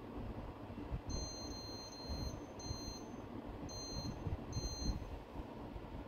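Changhong split air conditioner's indoor unit beeping as its universal control module takes commands from a Gree-code remote app: one long high beep of about a second, then three short ones. A steady low hum runs underneath.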